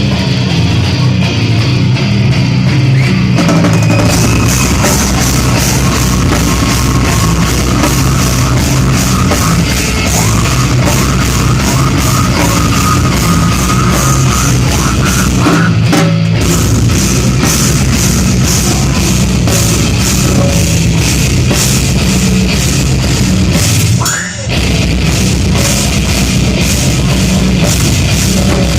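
Slam death metal band playing live: heavily distorted guitars and bass over fast, dense drumming. The music breaks off briefly twice, about halfway through and again about 24 seconds in.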